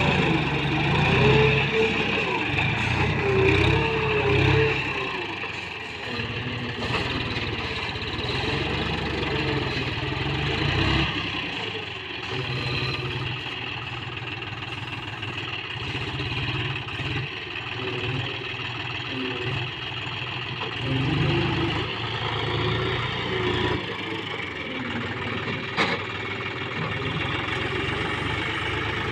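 John Deere tractor's diesel engine running under front-loader work, its revs rising and falling repeatedly as the hydraulic loader lifts and dumps sand.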